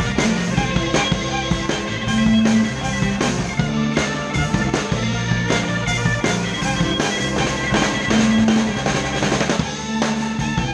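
A live rock band plays an instrumental passage with no singing. The drum kit is closest and loudest, keeping a steady beat on kick, snare and cymbals over electric guitar and bass guitar.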